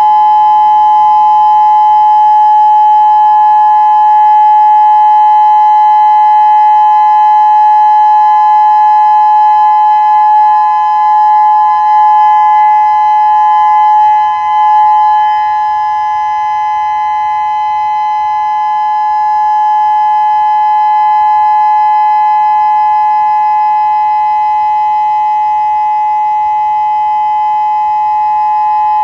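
Federal Signal Modulator 6032 electronic outdoor warning siren sounding its steady Alert tone for a scheduled test: two close pitches held level without rising or falling, loud throughout, dropping somewhat in level about halfway through.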